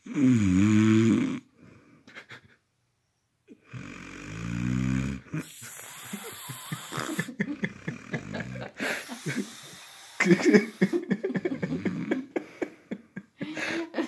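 A man snoring loudly in deep sleep: a loud snore at the start, then after a pause several more. One holds a low steady pitch, and the others break into a fast rattle.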